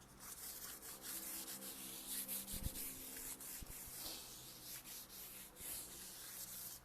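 Fine 1500-grit sandpaper rubbed by hand over the painted wood of a switch plate, a continuous scratchy hiss of uneven strokes that stops near the end. It is smoothing the dried first coat of background paint so the surface is no longer rough.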